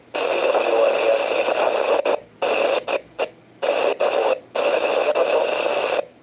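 Static hiss from an amateur radio transceiver's speaker as a noisy signal comes in. It breaks up and cuts out abruptly several times around the middle, then stops near the end.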